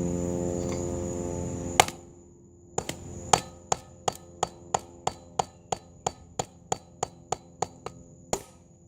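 A steady buzzing hum that cuts off with a sharp click, then a tool striking a 6-volt battery pack casing over and over, about three sharp knocks a second, to break it open.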